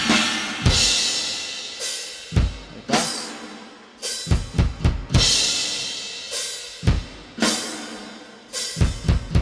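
Multitrack drum recording of a heavy doom-metal kit played back: slow, widely spaced hits of kick drum, snare and crash cymbals, each crash ringing out long, with a quick fill of several hits near the end.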